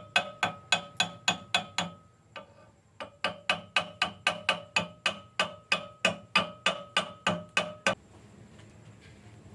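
A hammer striking steel in a steady rhythm of about three blows a second, each blow ringing with a metallic tone. The blows pause for about a second after two seconds, then run on until they stop near the end.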